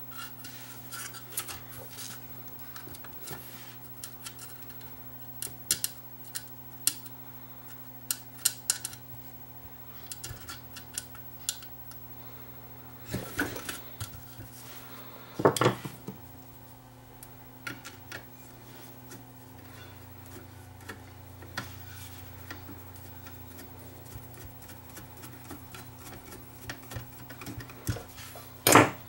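Metal parts of a 1948 Marconi 238 radio's chassis and front panel clicking and clinking as they are handled and fitted together, a scattered string of small sharp clicks, with a few louder knocks around the middle and just before the end.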